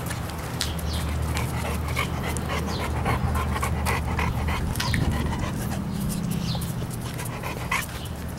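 Bullmastiff puppies panting as they move about on concrete, with many small sharp ticks of their claws on the floor. A steady low hum runs underneath.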